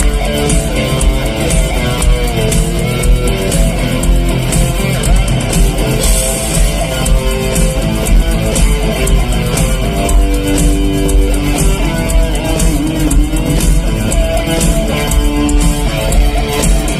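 Live rock band playing an instrumental section with an electric guitar solo over bass and a steady drum beat.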